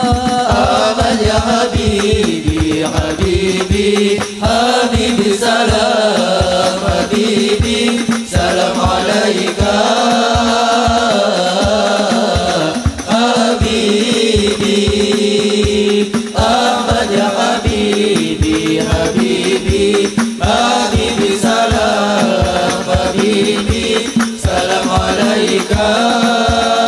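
A group of male voices singing an Islamic sholawat chant together, accompanied by hadrah frame drums (rebana) that beat a steady, fast rhythm, heard through a stage PA.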